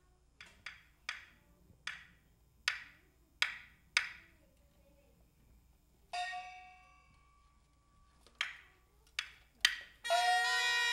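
Backstage percussion of a Taiwanese glove-puppet ensemble: sharp wooden clapper strikes, spaced at first and quickening, with one ringing gong stroke about six seconds in. Near the end a suona (Chinese shawm) starts up loud with the band.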